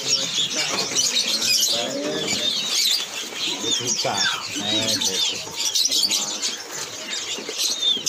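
Many small caged birds chirping at once: a dense, continuous chatter of short high chirps, many of them sliding downward.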